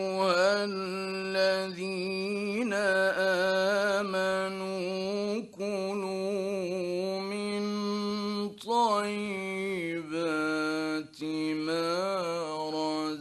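Male Quran reciter chanting in the ornamented mujawwad style, holding long melodic notes that waver and glide in pitch. There are a few short breaks for breath, about five and a half, eight and a half and eleven seconds in. It is an old early-1960s Egyptian radio recording.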